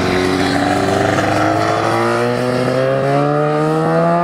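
Honda RVF750 race bike's V4 engine pulling hard under acceleration, its pitch rising steadily through a single gear.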